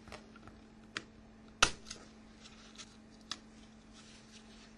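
A few scattered sharp plastic clicks and snaps as the front (A) cover of a Nokia 6100 mobile phone is unclipped and lifted off, the loudest about a second and a half in.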